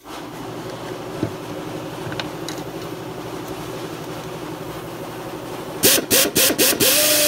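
Rodac 3/8-inch pneumatic air drill, freshly serviced and oiled, spinning a wire wheel brush. A steady low hum runs for about six seconds. Then the trigger is blipped in several quick bursts and held, giving a loud steady hissing whir of air-motor exhaust.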